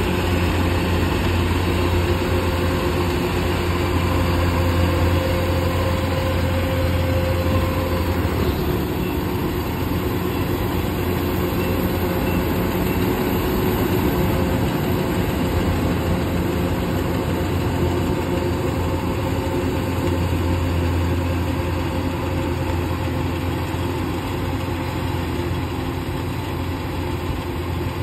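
Kubota DC-105X rice combine harvester's diesel engine running steadily at a constant pitch while the machine cuts and threshes rice.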